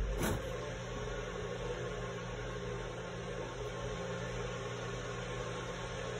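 A steady low mechanical hum with a hiss over it, like a motor or fan unit running, with a short knock right at the start.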